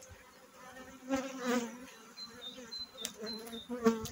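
Honeybees buzzing around an open hive, a steady wavering hum, with a couple of sharp clicks near the end as the wooden frames are handled.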